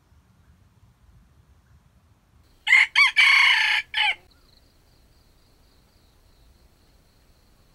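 A red junglefowl rooster crowing once, a little under three seconds in. The crow is two short clipped notes, then a long held note, then a short final note, about a second and a half in all.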